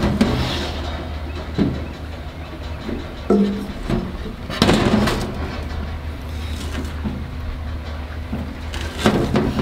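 A stainless steel grill body being handled and tipped on a stainless steel table: a few separate metal knocks and scrapes, one with a short ring, over a steady low hum.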